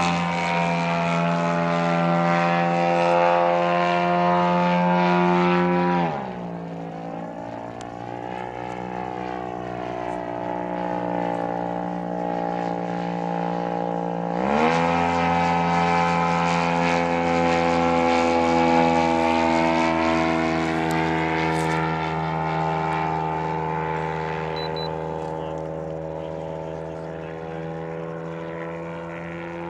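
Engine and propeller of a giant-scale 45% Decathlon RC airplane in flight. It is throttled back sharply about six seconds in, with the pitch plunging, and opened up again about halfway. The note then slowly sinks and fades near the end as the plane draws away.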